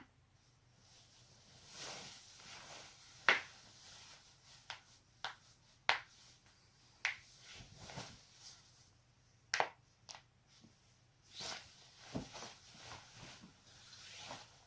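Joints being cracked: a series of sharp, separate pops, about eight, spaced irregularly a second or more apart, with softer rustling noise between them.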